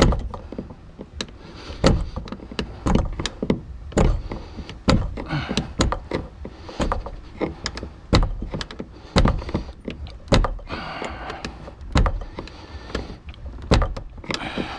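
Irregular clunks, clicks and scraping of hard plastic and metal parts as a fuel pump/sending unit assembly is pushed down against its spring and worked into the fuel tank opening.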